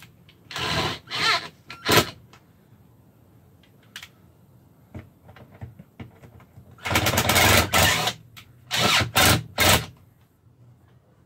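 Cordless drill/driver running the bolts of an RV roof air conditioner's ceiling assembly plate, in short bursts of a second or less: two near the start, a longer run about seven seconds in, and three quick bursts near the end. The bolts draw the plate up to compress the roof gasket.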